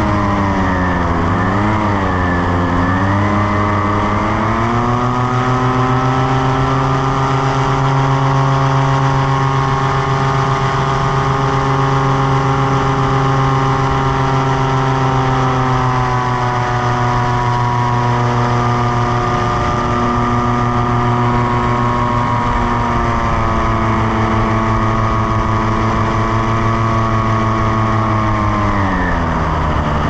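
Paramotor trike's engine and propeller running in flight. The pitch wavers at first, rises about four to five seconds in and holds steady, then drops near the end.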